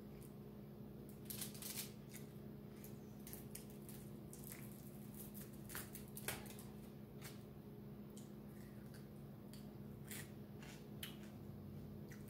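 Scattered soft crackles and rustles of fingers picking apart fish and rice on an aluminium-foil tray, over a steady low hum.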